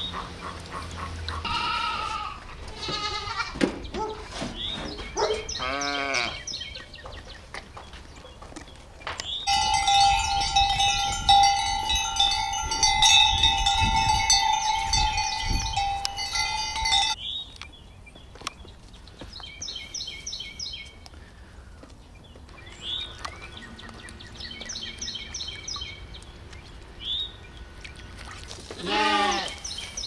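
A run of farm-animal sounds: domestic geese honking over the first few seconds, then a steady bell-like ringing for several seconds that starts and stops abruptly. Short high calls follow, and a lamb bleats near the end.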